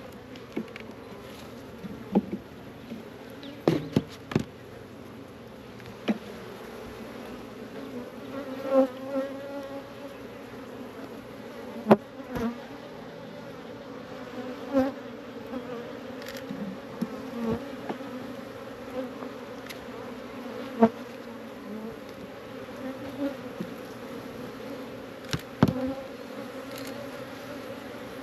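Many honey bees buzzing steadily around an open hive, with about a dozen sharp clicks and knocks scattered through as hive boxes and frames are handled.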